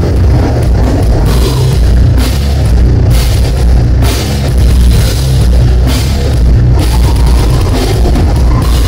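Heavy metal band playing live and loud: distorted electric guitars over a pounding drum kit, with cymbal crashes about once a second.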